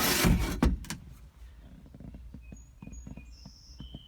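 A short burst of rustling and scraping as things are moved about in the truck cab, then scattered light clicks and taps. Faint short bird chirps in the background during the second half.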